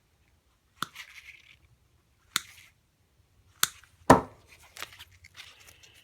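Sharp snips of a hand cutting tool working through the outer insulated jacket of a vacuum cleaner's power cord to strip it, four clicks with faint rubbing and scraping of the cord between them, the loudest about four seconds in.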